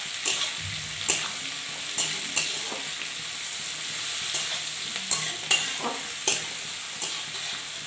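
Sliced onions sizzling in oil in a metal kadai as they fry toward light brown, stirred with a metal spatula that scrapes and clinks against the pan every second or so.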